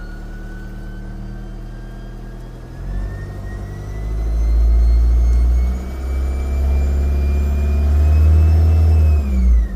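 VW Mk6 Golf TDI diesel running with a loud turbo whistle that climbs slowly in pitch as the engine speeds up, then drops away near the end. The whistle comes from a boost leak.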